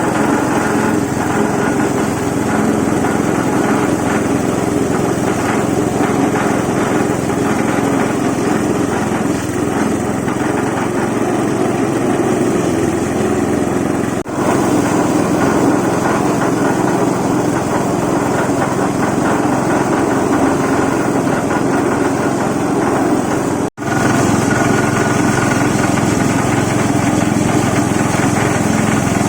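Stainless disk-mill salt grinder running steadily, its drive motor and mill making a continuous machine drone, with two momentary dropouts.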